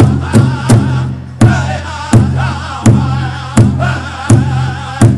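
Pow wow drum group: a large drum struck in unison under wavering group singing. The beat runs quickly at first, nearly three strikes a second, then after a brief break about a second in settles into a slower, steady beat of about one strike every three-quarters of a second.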